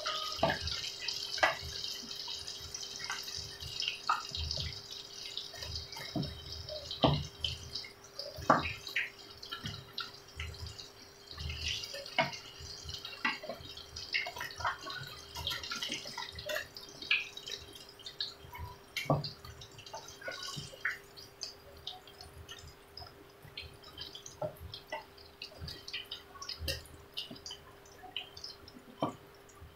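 Battered eggplant strips frying in hot oil in a wok: a sizzle with scattered crackling pops. The sizzle fades over the first half and the pops thin out near the end, with a few heavier knocks as a wooden spatula turns the pieces.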